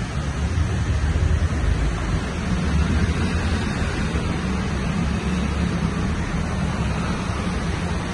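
Vehicles driving slowly through floodwater: a steady low rumble with water swishing around the tyres.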